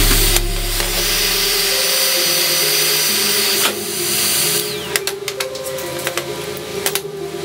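Electric heat gun blowing hot air onto an aluminium scooter reduction-gear case, heating it to free the bearings. Its steady fan hiss is switched off a little after halfway, and the whine falls as it spins down. Light clicks and knocks follow as the metal case is handled on the bench.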